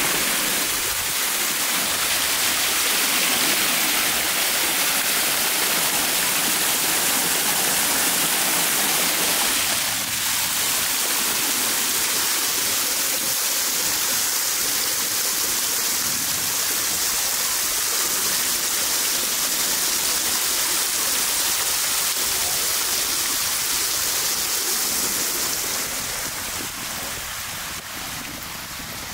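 Water cascading down a stepped stone fountain, a steady rushing and splashing that grows quieter near the end.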